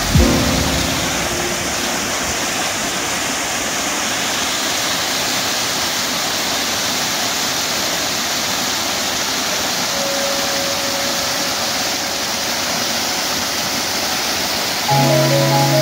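Mountain stream cascading over boulders in a small waterfall: a steady rush of falling and splashing water, with a brief low thump right at the start.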